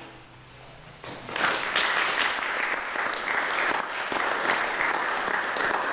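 Brief hush, then an audience breaks into steady applause about a second in.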